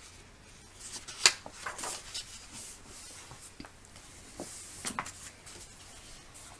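Paper rustling as a picture book's large page is turned by hand, with a sharp snap of the page about a second in and a second brief flurry of rustles near five seconds.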